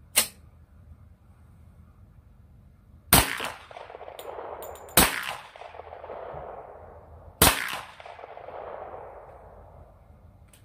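Glock 20 Gen 4 10mm pistol with a SilencerCo Hybrid 46 suppressor firing three shots of Magtech 180-grain full metal jacket, a couple of seconds apart, each report trailing off in a long echo. The load is expected to be supersonic, so each shot carries the bullet's crack of the sound barrier despite the suppressor. A sharp metallic click of the slide being worked comes right at the start.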